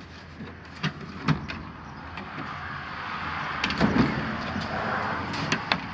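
Hard plastic tool boxes being handled and set on top of one another: sharp plastic clicks and knocks, a stretch of scraping, and a heavier thud about four seconds in.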